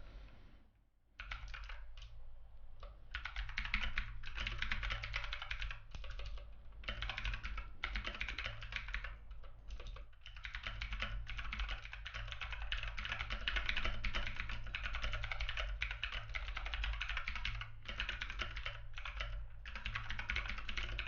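Typing on a Redragon Kumara K552 RGB mechanical keyboard: fast, continuous keystroke clicking in quick runs with short pauses, starting about a second in.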